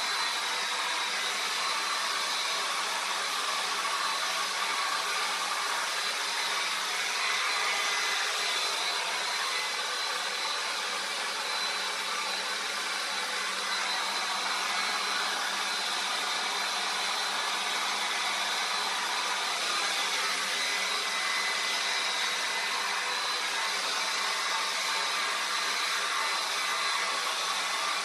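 Handheld hair dryer running steadily, an even rush of blown air with a faint high whine in it.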